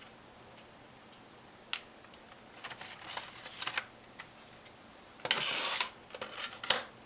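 Plastic clicks and scraping as the DVD drive is worked loose and pulled out of the Sony VAIO laptop's drive bay, with a longer sliding rasp about five seconds in and a few sharp clicks after it.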